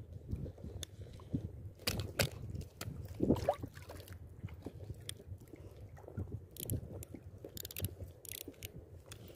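Spinning fishing reel being cranked, its handle and gears giving irregular crunchy clicks and scrapes. The reel is acting up: the angler scolds it for misbehaving.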